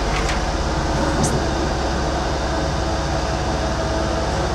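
Steady hum of a high-pressure coolant unit's electric pump motor and cooling fan running, even in level with a fixed set of tones.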